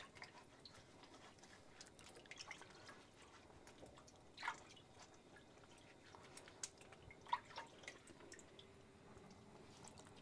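Faint drips and small splashes of water as hands rub and lift peeled green plantains in a pot of turmeric water, with a few sharper splashes about four and a half and seven seconds in.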